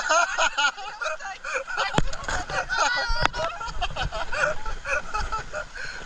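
People chatting and laughing, muffled through a GoPro waterproof case. Two sharp knocks come about two and three seconds in, and a low rumble runs from about two seconds on.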